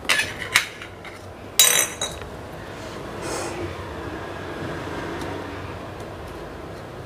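Stainless steel puttu steamer being opened: light metal clinks as the lid comes off, then one loud ringing clank of steel on steel about a second and a half in. A softer steady noise follows as the hot steel tube is handled in a towel.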